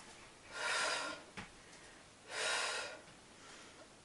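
A woman breathing hard while holding a reverse tabletop strength position: two loud breaths about a second and a half apart, with a short click between them.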